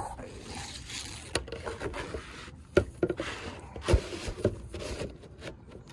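Asphalt roof shingles being lifted and a gutter guard mesh slid in beneath them: scraping and rubbing with three sharp knocks.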